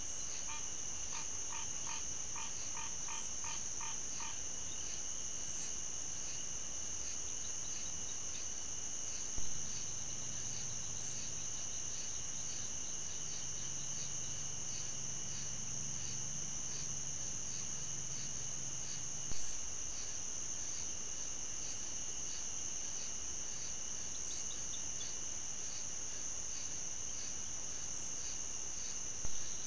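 Insect chorus: a steady high buzz with rows of rapid repeated chirps, joined in the first few seconds by a frog calling in a quick series of short notes. A sharp click sounds about every ten seconds, where the trail-camera clips join.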